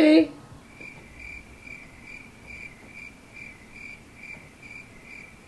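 Cricket chirping steadily, one high chirp about twice a second, starting about a second in.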